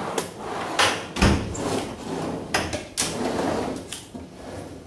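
Rummaging in a metal tool chest for a hammer: a drawer sliding and tools clanking, with several sharp knocks, the loudest about a second in.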